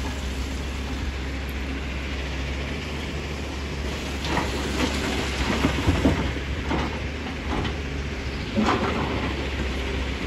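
Tata Hitachi excavator's diesel engine running steadily while a bucketful of broken stone is dumped into a dump truck's steel body: rocks clatter and thud into the bed for several seconds from about four seconds in, loudest in the middle, with one last sharp knock near the end.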